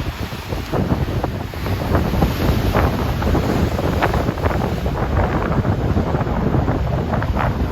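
Choppy ocean waves crossing one another, churning and splashing with many small breaks, over a steady low rumble of wind on the microphone.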